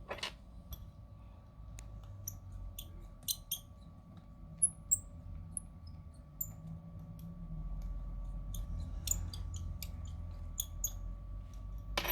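Scattered small clicks and tiny high-pitched squeaky ticks of a precision screwdriver driving the bottom screws back into an iPhone 11 Pro Max, over a low hum and a faint steady whine. A sharper click comes near the end.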